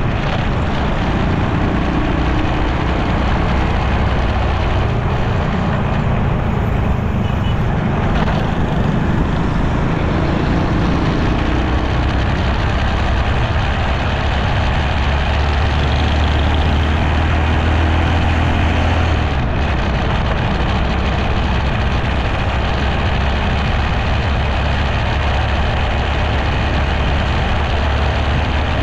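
Motorcycle engine running steadily with road noise, among other motorbikes and cars in city traffic. A low engine hum grows stronger for a few seconds past the middle.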